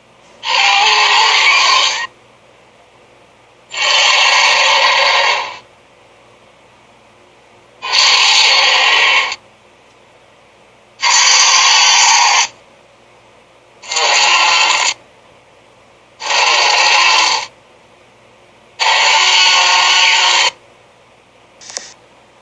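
A run of seven short cartoon sound effects for the SpongeBob SquarePants Squidapus character, each a noisy, scraping burst of one to two seconds, with short gaps between them.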